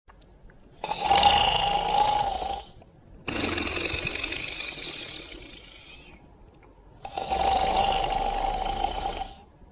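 An animated cartoon dog character snoring in a sound-effect style. There are two loud drawn-in snores of about two seconds each, with a long breath out between them that fades away.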